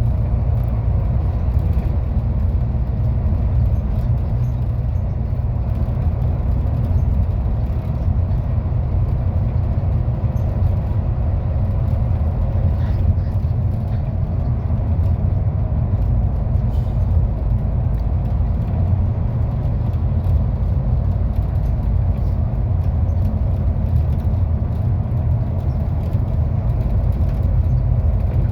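MAZ 216.047 articulated city bus under way, its engine and road noise making a steady low rumble heard from inside the passenger cabin.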